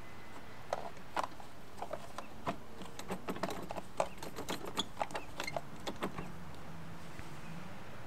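Plastic front drive wheel of a Craftsman self-propelled lawnmower being wiggled and pulled off its axle: irregular light plastic clicks and knocks that stop about six seconds in.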